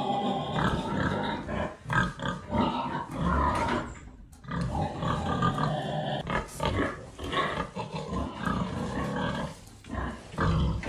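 Sows grunting repeatedly in a pen, with a short break about four seconds in.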